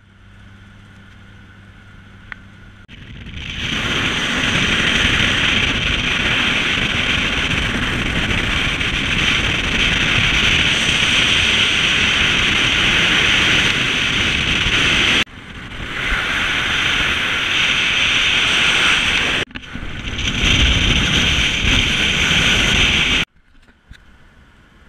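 Wind rushing hard over a camera microphone mounted on the outside of a moving 1965 Ford Mustang, with road and car noise underneath. The noise breaks off abruptly twice and drops away near the end, leaving the quieter, low steady hum of the car heard from inside the cabin, which also fills the first few seconds.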